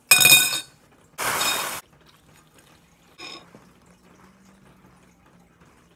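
Milk poured from a plastic gallon jug into a ceramic bowl: a loud clatter with a ringing tone, then a short pouring rush, and a smaller clink about three seconds in.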